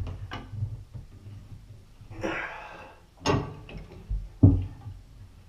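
A wrench working a threaded pipe loose overhead: a few sharp metal knocks, the two loudest about a second apart in the second half, with a man's strained breathing in between.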